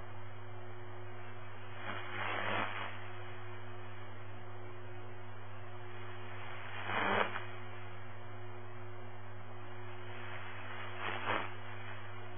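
Scanner radio with no one talking: a steady hiss of static over a low hum, broken by three brief louder bursts of static about two, seven and eleven seconds in.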